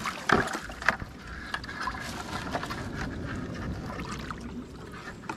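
Shallow river water sloshing and splashing as someone works at a plastic bucket standing in it, with two sharp knocks in the first second from the wooden catching stick striking the bucket.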